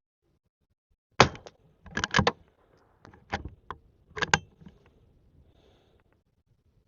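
Henry lever-action .22 rifle: a sharp crack about a second in, the loudest sound, then sharp metallic clacks in three more groups over the next three seconds as the action is worked.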